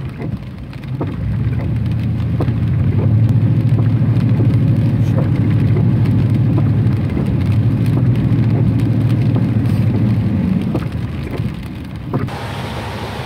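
Rain falling on a car's roof and windshield, heard from inside the cabin, with scattered sharp drop ticks over the low rumble of the car's tyres driving through standing floodwater. About twelve seconds in, the sound turns brighter and hissier.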